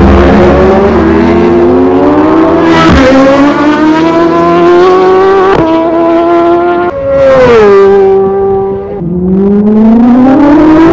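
Road-racing motorcycles at full throttle flat out past the roadside, engine pitch climbing through quick upshifts. Midway one bike's note drops sharply as it goes by, then another engine climbs again toward the end.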